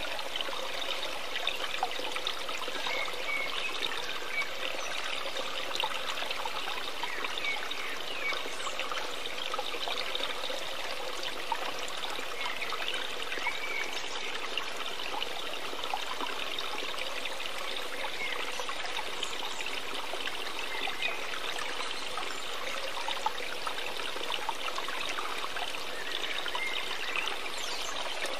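Steady sound of running, trickling water, like a small stream.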